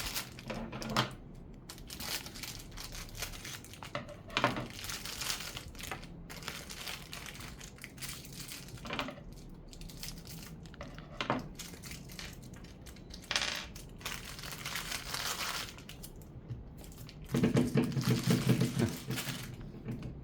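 Plastic crinkling and rustling with scattered clicks and knocks from handling the pan and its handle parts while the handle is fitted. A louder, lower rubbing stretch comes near the end.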